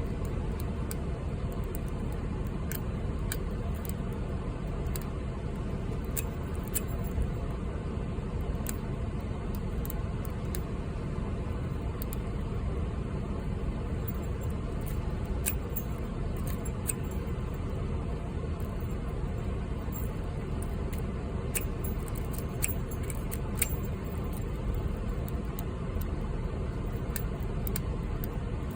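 Light metallic clicks and ticks of a hook pick and tension wrench working the pin stack of a 38mm Ace padlock, coming irregularly, over a steady low rumble.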